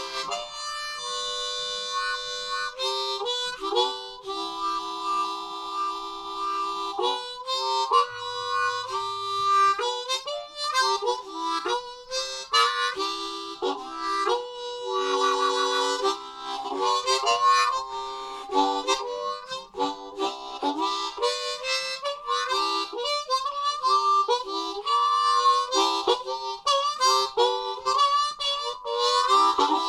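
Harmonica playing a country-blues line, mixing long held chords with quicker, choppier notes and a few wavering, bent tones.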